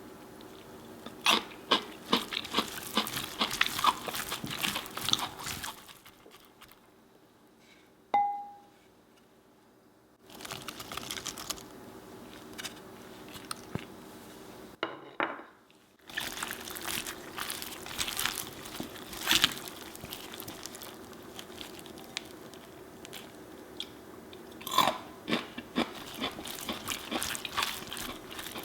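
Crisp crunching and clicking from celery being cut or handled, in a run of short clips, with one bright ringing clink about eight seconds in.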